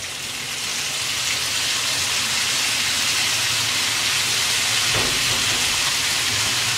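Shredded cabbage sizzling in hot oil in a kadai as it is tipped in: a steady hiss that swells over the first couple of seconds, then holds.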